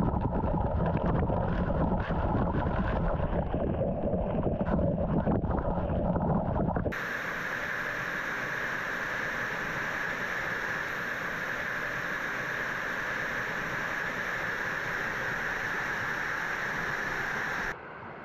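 Waterfall water rushing over and around the microphone, a rough, rumbling rush. About seven seconds in it cuts abruptly to a steady, even waterfall roar, which stops suddenly near the end.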